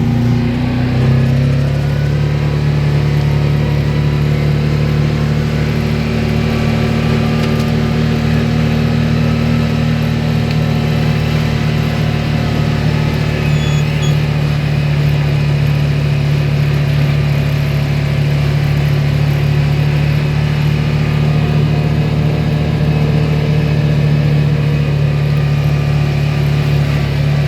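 Engine of a farm vehicle running steadily while driving along. Its pitch steps up about a second in, then holds.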